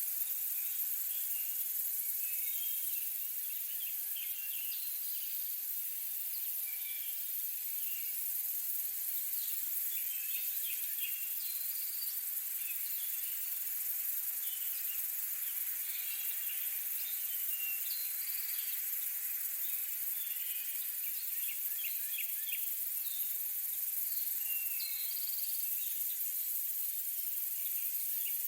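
Forest insect chorus: a steady high-pitched insect drone with many short chirps scattered throughout.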